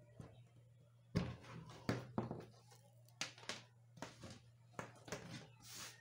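Handling noises: a string of irregular knocks, clicks and scrapes as insulated copper wire and a soldering iron are handled on a wooden board, the loudest knock about a second in, over a faint steady low hum.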